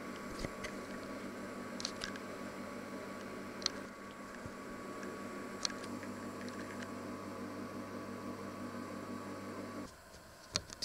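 Steady hum of a kitchen appliance or fan, with scattered light clicks and taps. Near the end the hum cuts off abruptly and two sharper clicks follow.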